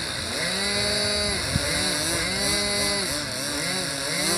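Several nitro glow-fuel RC model airplane engines running at once, their pitches rising and falling and crossing as the throttles are blipped up and down. There is one sharp click about a second and a half in.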